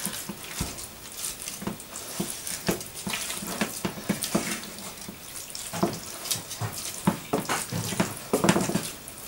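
Wooden spoon stirring raw minced beef wetted with French onion soup in a plastic bowl: a run of irregular wet scrapes and knocks.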